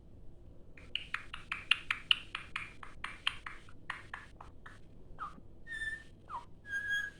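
Indian ringneck parrot giving a fast run of sharp clicking chatter, about five clicks a second, then a few short falling whistles and two held whistled notes, which the owner takes for Dolly imitating an Australian magpie.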